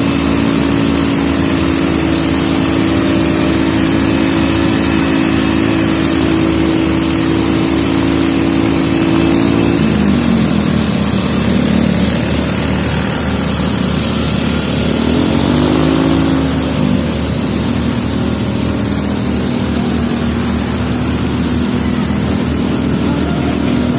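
A fire truck's engine runs steadily under a strong hiss. Its pitch drops about ten seconds in, rises again briefly around fifteen seconds, then settles at a lower, steady speed.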